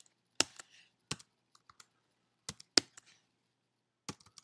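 Slow, irregular keystrokes on a computer keyboard, about half a dozen separate key clicks with pauses between them.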